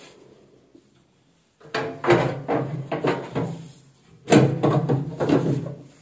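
Microwave oven's wood-grain outer cabinet cover being slid back onto the chassis: two rough bouts of scraping and rattling, about two seconds each, the second starting with a sharp knock.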